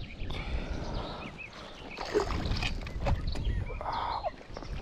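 Water splashing and swirling as a hooked chub thrashes at the surface on a fly line. Scattered short splashes and clicks sit over a low wind rumble on the microphone.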